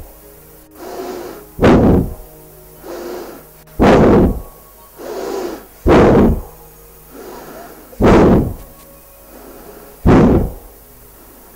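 Rhythmic forced breathing close to a microphone during a pranayama exercise: a loud exhale about every two seconds, with a softer in-breath between each.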